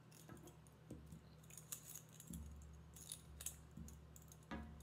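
Faint, scattered metallic clicks and ticks of 18-gauge craft wire being coiled by hand around a bundle of wires, the strands tapping against one another.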